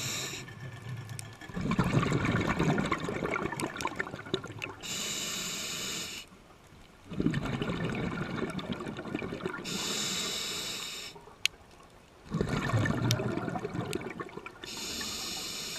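Scuba diver breathing through a regulator: a short hissing inhale followed by a longer bubbling rush of exhaled air, repeating about every five seconds.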